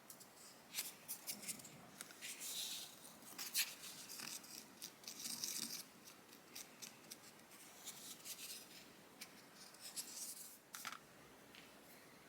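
Irregular small clicks and short scraping, rustling strokes of close-up hand work, with a quiet steady background hum between them.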